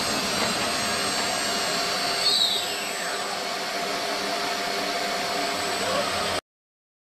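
CNC plate-cutting machining center with a circular saw blade and router spindle running: a steady loud whine over hiss, with a brief whistling pitch sweep about two seconds in. It cuts off abruptly near the end.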